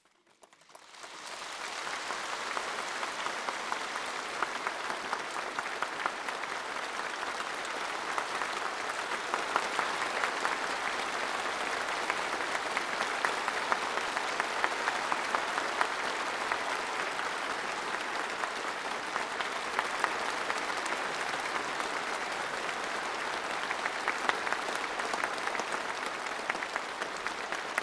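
Large assembly of standing delegates applauding: dense, steady applause that swells in over the first couple of seconds and then holds on, long and unbroken.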